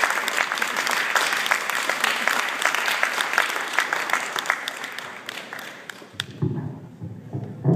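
Audience applauding in a large hall, a dense patter of many hands that fades away after about six seconds. Near the end it gives way to low, muffled sounds.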